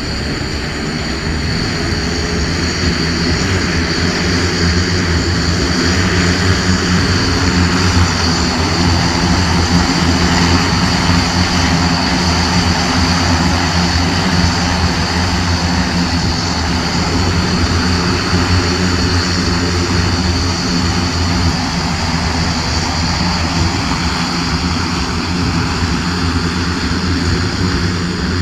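Battery-powered electric multicopter's many propellers running steadily in flight: a dense drone with a steady high whine on top, swelling slightly a few seconds in.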